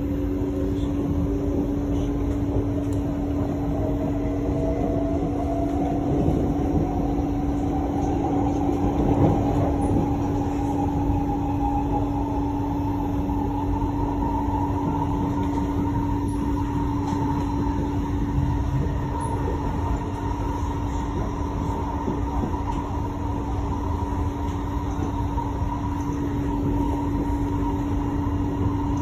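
Metro train heard from inside the carriage while running on an elevated track. The traction motors' whine rises in pitch over roughly the first 14 seconds as the train gathers speed, then holds steady, over a continuous rumble of wheels on rail and a steady low hum.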